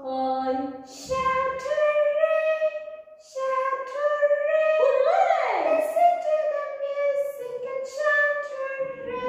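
A high female voice singing a melody in long held notes, with short breaks between phrases and a quick swoop up and back down in pitch about five seconds in.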